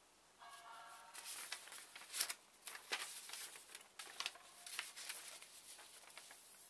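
Sheets of paper being handled, rustling and crinkling in quick irregular crackles, with a short squeak about half a second in and the sharpest crackle a little after two seconds.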